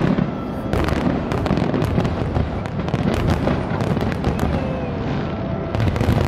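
Aerial fireworks shells bursting in quick succession: many sharp bangs, close together and overlapping, over a steady low rumble.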